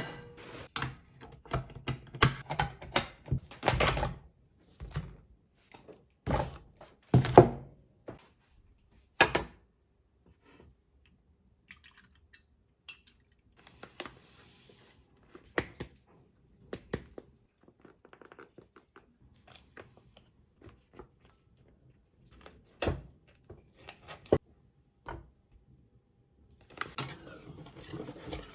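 A series of knocks, thunks and clatters of hard objects being handled and set down, thick for the first ten seconds and sparse after, with a steady hissing noise starting near the end.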